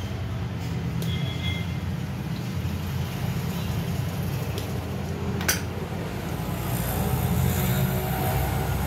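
Steady low rumble, like road traffic or a running engine, with one sharp metallic click about five and a half seconds in from end-cutting pliers working the meter's small metal mechanism.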